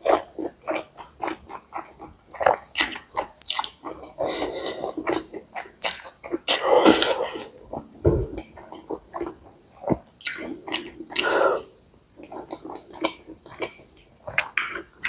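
Close-miked wet chewing and lip smacks from eating stir-fried rice noodles, a quick run of short sticky clicks, with a longer, louder wet rush about seven seconds in and a low thud just after.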